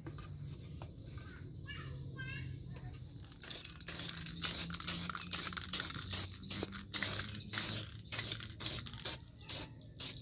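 A cloth rubbed back and forth along a carved wooden golok handle: a regular run of hissing strokes, about two a second, beginning a few seconds in.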